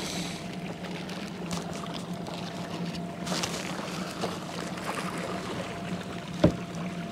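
Water trickling and lapping around a fishing kayak on the river, over a steady low hum, with a single sharp knock about six and a half seconds in.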